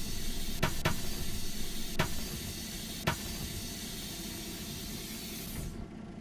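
Steady hissing noise on a city bus, with a few sharp clicks or knocks in the first three seconds.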